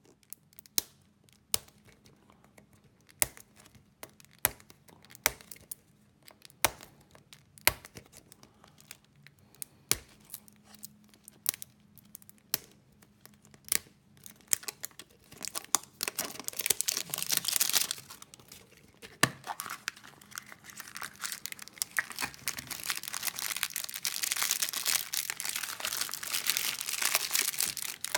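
Fingers picking at and tearing off the thin printed plastic wrapper of a toy surprise egg: scattered sharp crinkles and clicks at first, then from about halfway steady crinkling and tearing of the film.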